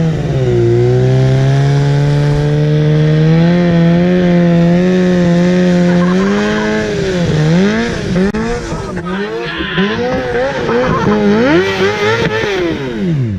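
Suzuki GSX-R 750 motorcycle engine held at high revs during a burnout, its rear tyre spinning with a squealing hiss. About halfway through, the revs begin swinging rapidly up and down as the throttle is worked.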